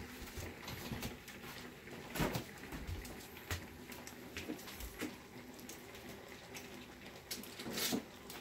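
Kitchen cookware and utensils being handled: scattered knocks and clicks, the loudest about two seconds in and near the end, over a faint steady hum.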